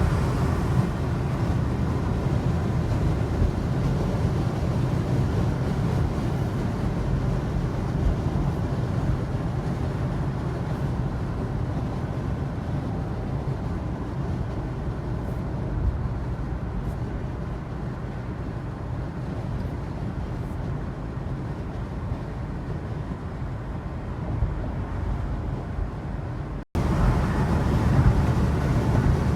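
Steady low rumble of a moving vehicle. It breaks off abruptly near the end and starts again a little louder.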